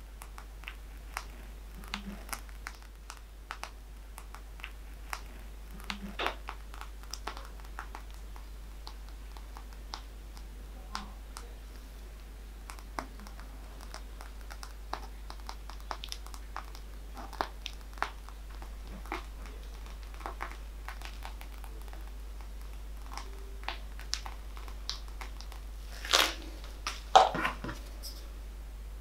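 Plastic piping bag crinkling in short scattered ticks and clicks as whipped cream is squeezed out onto the cake, with a louder knock and clatter near the end.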